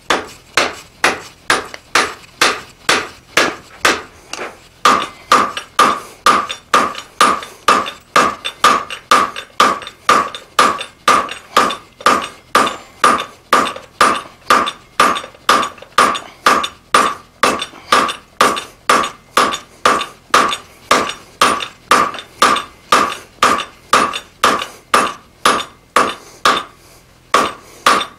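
Hand hammer striking red-hot steel on an anvil at a steady pace of about two blows a second, each blow ringing briefly. The smith is drawing out the tang of a forged drawknife.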